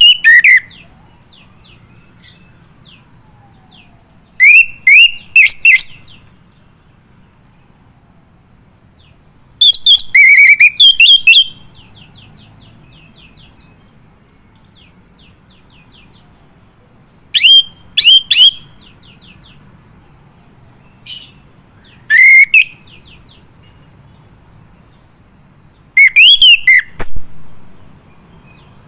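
Male orange-headed thrush singing: a loud, short phrase of gliding whistles every few seconds, with soft rapid ticking notes between the phrases.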